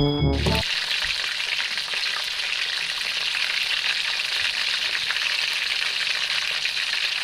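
Chicken frying in hot oil: a steady, dense crackling sizzle.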